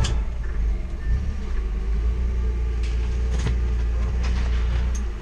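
Steady low engine rumble as a forklift brings a boxed load up to the open back of a cargo van, with a couple of light knocks about three seconds in. The rumble cuts off suddenly at the end.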